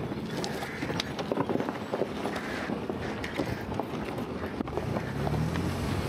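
Ford Bronco crawling slowly over a rocky trail: tyres crunching and knocking on loose rock, with many small clicks and the engine running low underneath. Wind on the microphone.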